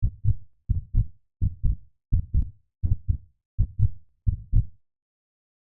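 A heartbeat: paired lub-dub thumps, about seven beats at a steady pace of roughly 85 a minute, cutting off suddenly near the end.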